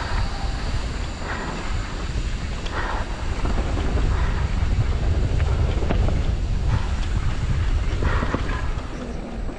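Wind buffeting a helmet-mounted camera on a mountain bike descending a dirt singletrack, with scattered clicks and knocks from the bike rattling over the trail.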